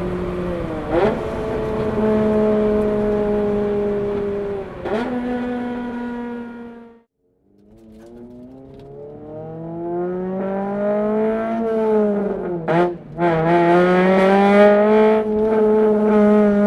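Exhaust note of a Honda Civic Type R (FD2) 2.0-litre four-cylinder VTEC engine while driving: a steady engine note with two quick flicks in pitch, fading out briefly about halfway through. It then comes back and climbs steadily in pitch, drops sharply once and recovers, and rises again to hold.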